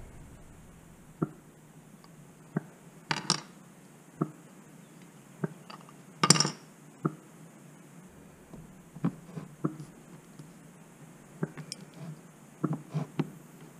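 Scattered light clicks and knocks of a plastic 3D-printed lure mold and plastic spring clamps being handled, with two short louder scrapes about three and six seconds in.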